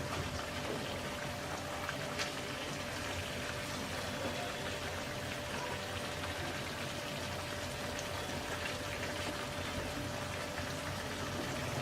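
Eggplant pieces cooking in a pan of spiced masala with oil risen to the top: a steady simmering sizzle and bubbling, with a few faint clicks.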